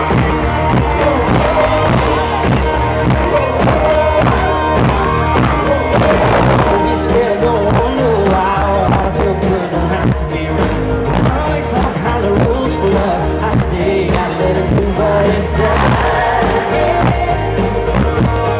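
Live country-pop rock band playing loud through a concert PA, heard from the crowd: electric guitars, bass and a steady drum beat, with singing.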